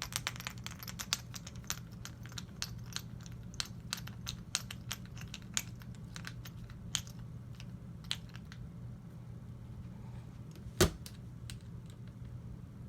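Small metallic clicks and taps of rifle parts being handled and fitted during disassembly, quick and frequent at first, then sparser, with one louder knock about eleven seconds in, over a steady low hum.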